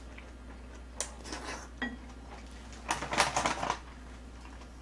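A metal spoon clicking against a ceramic rice bowl during a meal, a sharp tap about a second in and a few lighter clicks after. About three seconds in comes a short burst of crackly rustling from a paper tissue.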